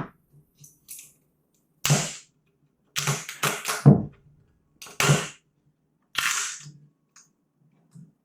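Sharp cracks and snaps from a pickleball paddle's edge guard being pried off with a putty knife, the glue bond breaking as it comes away. There is one about two seconds in, a quick run of about four between three and four seconds, then two more about a second apart.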